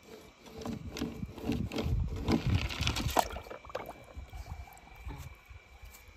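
Water splashing and sloshing in a plastic tub as paint-covered toy cars are dunked and moved about in it, with small clicks and knocks of the toys. It is loudest around two to three seconds in, then settles.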